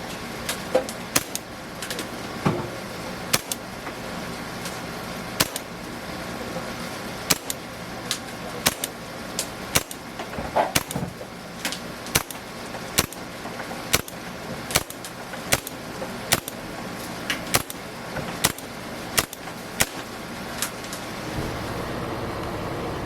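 WF M92 Beretta blowback airsoft pistol fired semi-automatically, about twenty sharp shots at uneven intervals of roughly one a second, stopping about 20 seconds in. Steady traffic-like background noise runs underneath.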